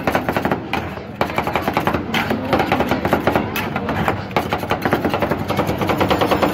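Two metal spatulas rapidly chopping and tapping on the frozen steel plate of a rolled-ice-cream cold-plate machine: a fast, clattering run of metal-on-metal strikes as the ice cream base is chopped and mixed.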